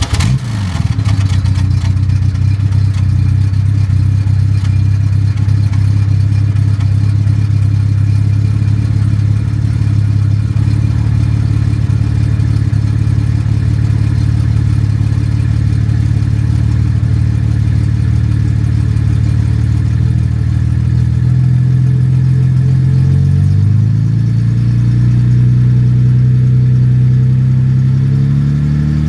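Jaguar Mk II's straight-six engine idling steadily just after starting. The idle speed rises a little about three quarters of the way through, and again near the end.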